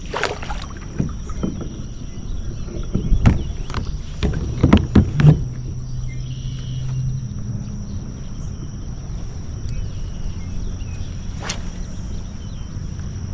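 Kayak being turned on the water: a run of knocks against the hull, most of them about three to five and a half seconds in, over a steady low hum.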